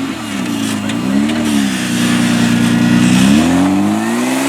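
Modified off-road competition 4x4's engine revving: the revs rise and fall twice, hold steady for a moment, then climb steadily near the end.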